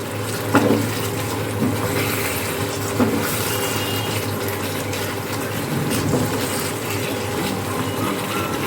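Chicken pieces and masala sizzling and bubbling in their released water in a pan over a raised gas flame, stirred with a spatula, with two sharper knocks about half a second and three seconds in. The watery sizzle marks the stage where the water is being cooked off before the masala releases its oil.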